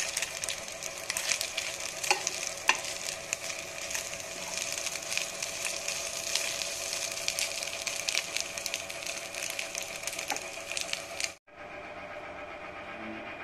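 A spatula stirring and scraping food around a nonstick frying pan while it sizzles, with frequent sharp clicks of the spatula against the pan. It cuts off suddenly near the end, giving way to a steady hum.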